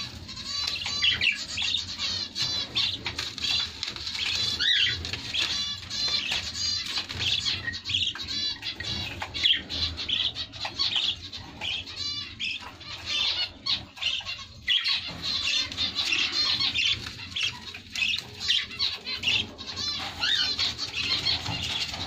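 Many caged birds chirping and chattering at once: a dense, unbroken chorus of short, high-pitched calls.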